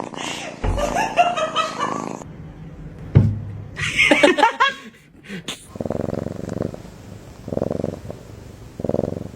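Domestic cat purring close up, in three stretches of rapid pulsing, each about a second long with short pauses between them. These come in the second half. Before them are a few short pitched cries and gliding calls.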